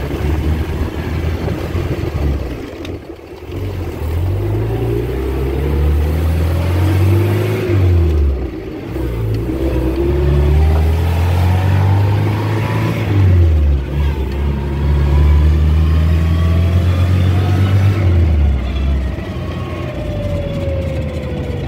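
A 1961 Land Rover's freshly rebuilt four-cylinder petrol engine pulls the vehicle along while it is driven up through the gears. The engine note climbs in each gear and drops briefly at each of several gear changes.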